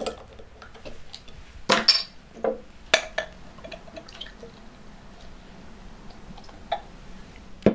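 Metal cap being prised off a glass bottle with a few sharp clicks in the first three seconds, then a fizzy drink poured from the bottle into a glass tumbler, pouring and foaming quietly.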